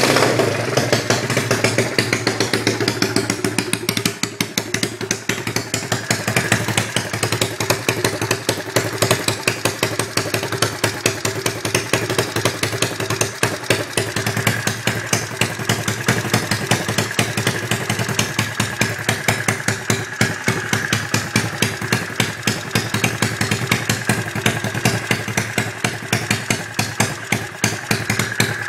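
Small 110cc pocket bike engine running steadily at idle, a rapid even run of exhaust pulses. A thin high whine joins about six seconds in.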